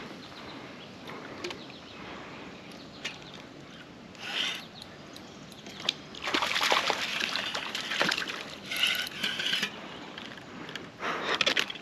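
Water splashing and sloshing in several short bursts, the longest and loudest a little past the middle, with a few sharp clicks among them.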